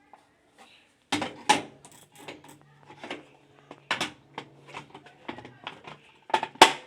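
Hard plastic clicks and knocks, irregular and of varying strength, as a washing machine's control panel parts are handled and fitted back together, with a few sharper knocks standing out.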